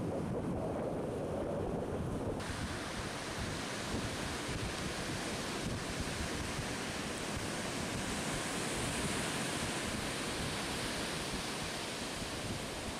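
Sea surf breaking on a sandy beach: a steady rushing wash of waves, with wind buffeting the microphone. About two seconds in the sound turns brighter and hissier.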